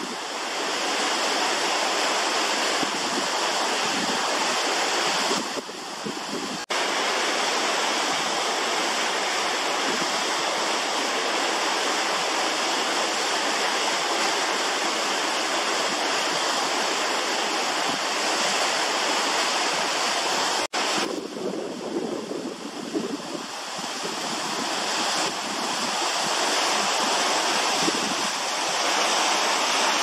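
Water of a partly frozen waterfall pouring steadily over rock into an icy pool, a continuous rush of falling water. The rush drops out for an instant twice, about a third and two-thirds of the way through.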